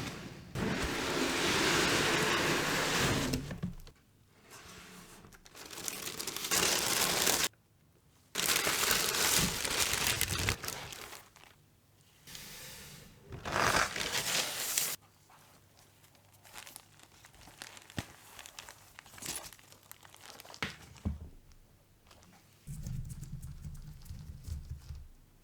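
Packaging paper crinkling and tearing as it is handled, in several loud bursts during the first fifteen seconds, then lighter scattered rustles and small clicks, with a lower rubbing sound near the end.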